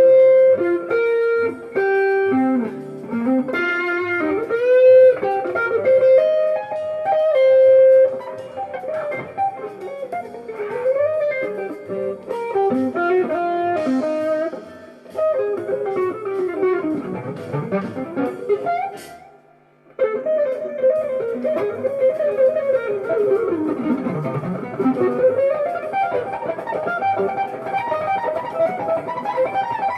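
Jazz fusion music led by a guitar playing a melodic line with pitch bends and sliding runs. The music drops out briefly about two-thirds of the way through, then comes back in.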